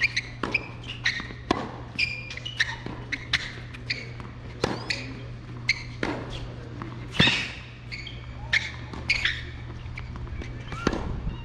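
Tennis rally on an outdoor hard court: sharp pops of the ball off the rackets and its bounces, the loudest about seven seconds in. Short high bird chirps and whistles run through it, over a steady low hum.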